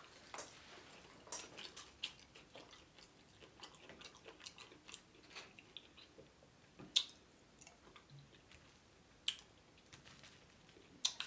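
Quiet chewing of fried chicken: scattered soft mouth clicks and crunchy bites, a few of them louder.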